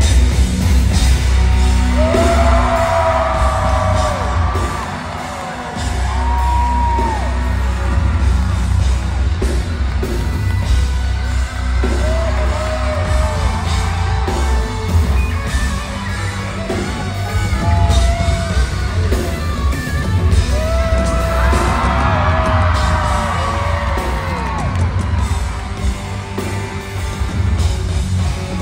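Loud live pop concert music: a band with a heavy bass line and drums, with short sung vocal phrases coming and going and yells over it.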